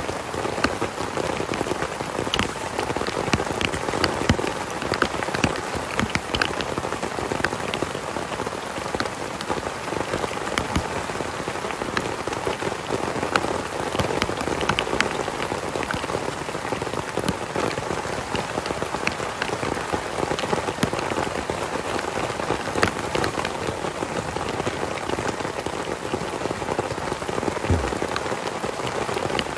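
Heavy rain falling steadily: a dense, even hiss with many separate drop hits.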